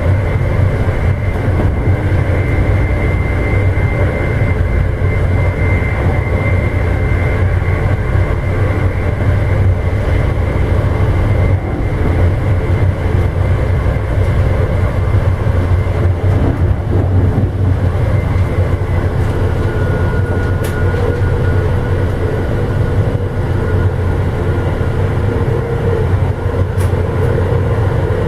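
Amtrak Illinois Zephyr passenger train running at speed, heard from inside a car: a steady low rumble of wheels on rail with faint whining tones over it.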